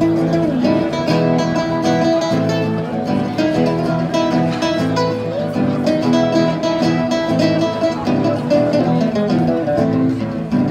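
Background music led by an acoustic guitar, with plucked and strummed notes running on steadily.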